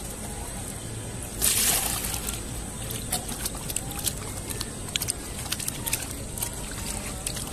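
A short splash or rush of water about a second and a half in, then scattered clicks and knocks.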